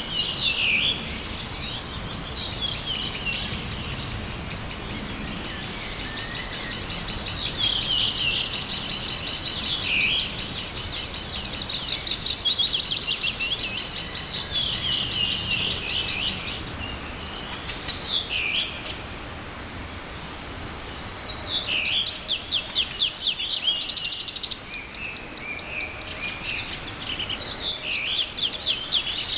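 Several songbirds singing, their songs overlapping: fast runs of repeated high notes and falling phrases, loudest about a third of the way in, about three quarters of the way through and near the end. A faint steady rush of a small forest stream lies beneath.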